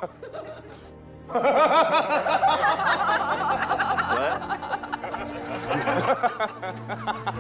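A man laughing loudly and at length over background music, starting about a second in.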